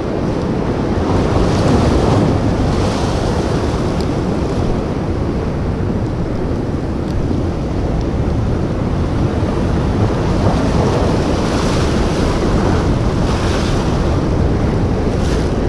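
Ocean surf washing over shore rocks, swelling in surges as waves break, with wind buffeting the microphone.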